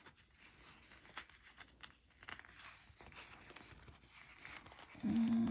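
Faint crinkling and small clicks as hands squeeze and push out the corners of a stitched vinyl bag. Near the end comes a short, steady hum from a woman's voice.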